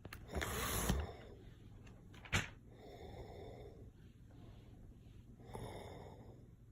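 A man snoring in his sleep: a loud rasping snore about half a second in, then softer snoring breaths. A sharp click sounds a little after two seconds.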